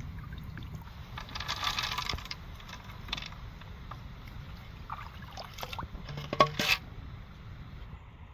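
Hands scooping and splashing in shallow stream water about a second in, then small snail shells clicking and rattling against one another as they drop into a bamboo tube, loudest a little after six seconds. A steady low rumble runs underneath.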